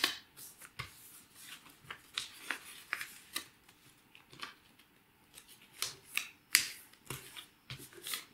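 A square of green paper being folded and creased by hand, its edges brought to the centre into an origami kite shape: scattered short rustles and crinkles, with a few sharper crackles as the creases are pressed flat.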